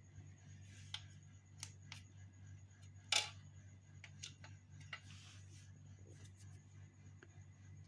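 Scattered sharp clicks and light knocks, about seven of them, the loudest a little over three seconds in, over a steady low hum.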